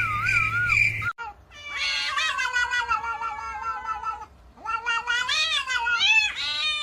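Domestic cat yowling in two long drawn-out calls: the first slowly falls in pitch, and the second wavers and climbs. In the first second, before the cat, there is a steady high chirping trill with a warbling whistle over it.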